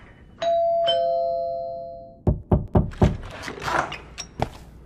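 Apartment intercom door chime sounding a two-note ding-dong, high then low, each note ringing out. It is followed by a quick run of several sharp thumps.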